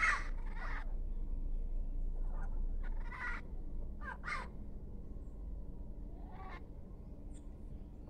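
A flock of Amazon parrots calling from a treetop with short squawking calls. A cluster of calls comes at the start and more come about three to four and a half seconds in, then a few fainter ones.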